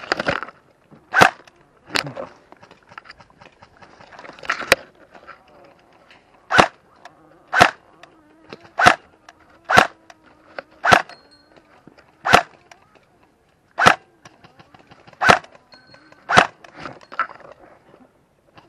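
Airsoft rifle fired in single shots, about fourteen sharp cracks spaced one to two seconds apart.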